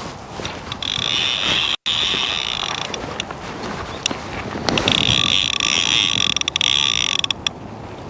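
Fishing reel's drag ticking rapidly as a hooked barbel pulls line off against it, in two runs: one about a second in and a longer one from about five seconds in.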